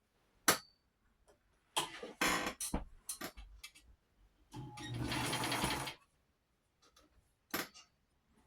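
1960 White sewing machine, freshly oiled: scattered clicks and short rattles from its mechanism, then one short run of stitching lasting about a second and a half, about four and a half seconds in.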